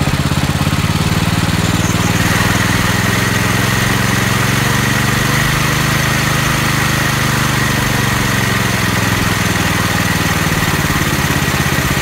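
Small single-cylinder four-stroke engine from a Coleman mini bike running steadily on half choke, which the owner takes as a sign that it runs a little lean. A steady high whine joins the engine about two seconds in.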